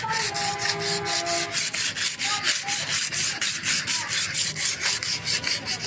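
Rapid back-and-forth scrubbing on the electric scooter's hub motor, about five strokes a second, as the dust and grime are cleaned off around the newly fitted hall sensor.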